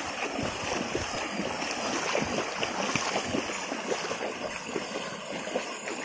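Bullocks' hooves and cart wheels wading through a shallow stream: a steady run of irregular splashes and sloshing water.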